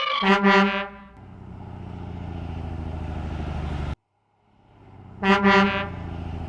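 Garbage truck horn sound effect honking twice, then the truck's engine running with a steady low rhythmic drone. The sound cuts off abruptly about four seconds in, the engine fades back in, and the horn honks twice more.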